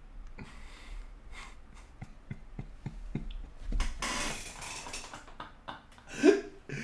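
A man's stifled, breathy laughter: a run of short quick pulses, then a longer breathy outburst about four seconds in, and a short voiced burst near the end.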